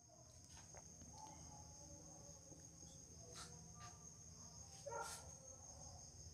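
Near silence: room tone with a faint, steady high-pitched whine and a few faint soft clicks, the clearest about five seconds in.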